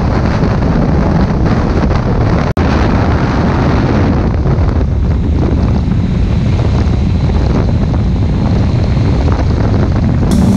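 Heavy wind noise on a GoPro action camera's microphone while riding a Honda CBR650F motorcycle at highway speed, around 100 to 130 km/h. There is a momentary gap about two and a half seconds in.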